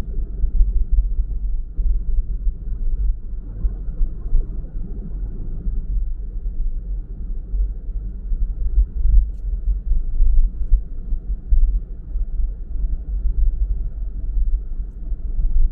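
Low, uneven rumble of a car on the move: road and engine noise.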